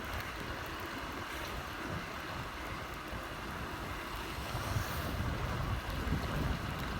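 Wind buffeting the phone's microphone: a steady rushing noise with low, uneven rumbling.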